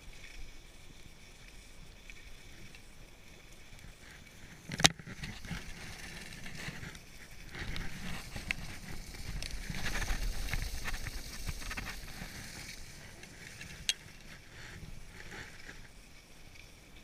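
Skis sliding and scraping over packed snow, a steady hiss that swells louder through the middle, with wind rumble on the microphone. A sharp click about five seconds in and a smaller one near the end.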